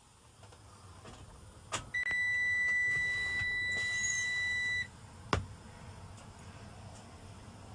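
The truck's dashboard warning buzzer gives one steady, high-pitched beep lasting about three seconds at key-on, while the instrument cluster runs its gauge-sweep self-test. A sharp click comes just before the beep and another shortly after it.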